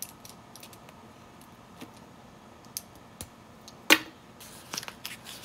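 LEGO bricks being handled and pressed together: scattered light plastic clicks and taps, with one sharper click about four seconds in as the small build is put down on the table.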